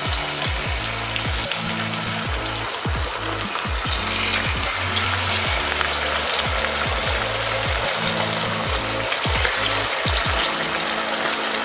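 Battered potatoes deep-frying in hot oil: steady dense sizzling and crackling. Background music with a low repeating bass line plays underneath.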